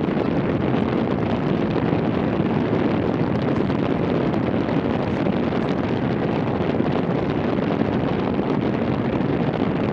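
Steady wind noise buffeting the microphone during a snowstorm, a constant low rush with no breaks.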